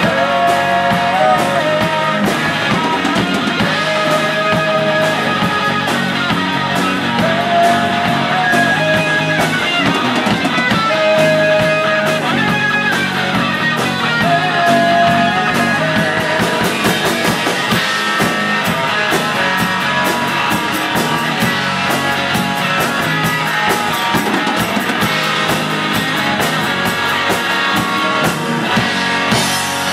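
Live rock band playing an instrumental passage: an electric guitar lead of held, bending notes over a drum kit.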